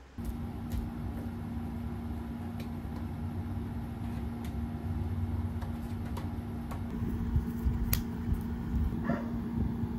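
Steady low hum and rumble of background room noise, with a few light clicks, the sharpest about eight seconds in.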